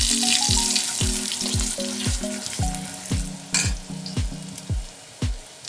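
Cumin and green chillies frying in hot desi ghee in a kadhai, sizzling, the sizzle dying down after about three seconds with one brief flare in the middle. Background music with a steady beat of about two thumps a second plays throughout.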